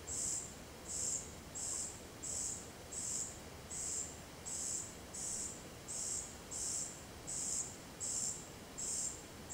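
Common cuckoo fledgling begging for food from its European robin foster parent: short, high calls repeated steadily, a little under two a second.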